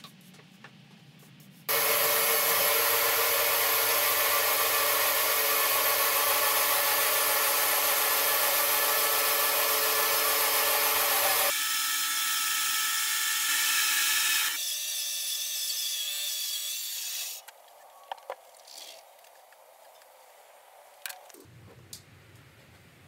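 Bandsaw sawmill starting up about two seconds in and running loud and steady as its blade saws through a green eucalyptus log. The sound shifts abruptly twice, then stops about three quarters of the way through, leaving only a few faint clicks.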